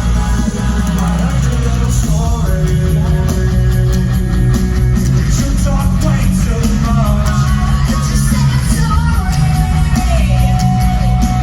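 Live rock music played loud through a concert sound system, with heavy bass and a singing voice over it.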